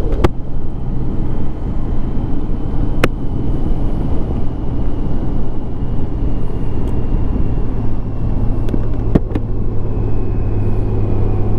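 Motorcycle running at road speed while being ridden: a steady low engine hum under constant wind and road noise, with a few sharp clicks. The engine hum grows stronger near the end.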